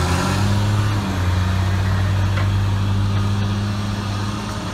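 Log Champ LC550 swing yarder's diesel engine running steadily with a low, even hum.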